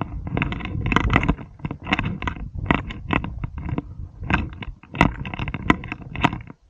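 Hiking footsteps crunching and scraping on loose stones and gravel while picking a way down a steep scree slope, in irregular bursts with brief pauses between steps.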